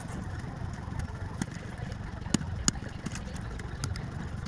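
Small sharp plastic clicks, several scattered a second or less apart, as laptop keycaps are prised off their scissor clips with a screwdriver, over a steady low hum.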